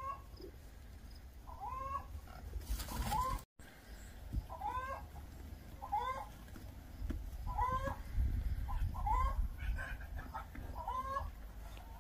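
Poultry calling over and over, roughly once a second, each short note bending up and then down in pitch. A brief burst of noise cuts in about three seconds in.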